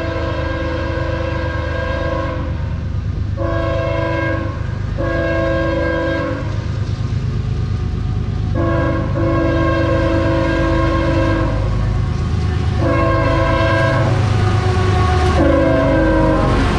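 CSX freight train's lead diesel locomotive sounding its air horn, a chord of several tones, in a series of blasts, some long and some shorter, as it approaches. Under the horn, the low rumble of the engines and wheels grows slightly louder.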